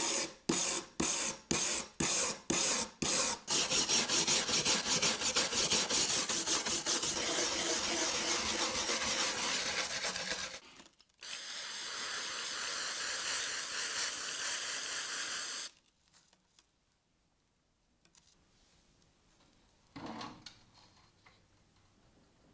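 Steel-wire brush scrubbing loosened rust off a pitted steel knife blade: about seven separate strokes, then fast continuous back-and-forth scrubbing for about seven seconds. After a short break comes a steady hiss for about five seconds, then it goes quiet except for one brief sound near the end.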